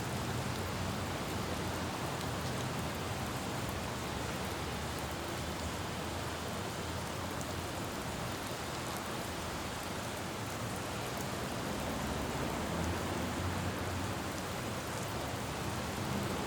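Steady rain falling on a road, pattering as an even hiss, with a low rumble of distant traffic underneath.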